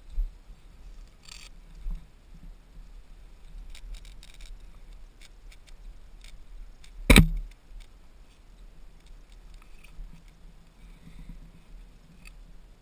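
Low wind rumble on the microphone, with a couple of soft thumps, scattered light clicks, and one sharp knock about seven seconds in.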